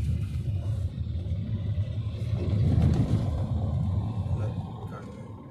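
Low, steady rumble of a car driving on a paved road: engine and tyre noise, swelling somewhat louder a little before the middle and easing off toward the end.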